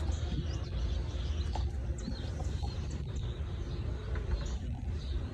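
Outdoor ambience: faint bird chirps over a steady low rumble, with a few small handling clicks.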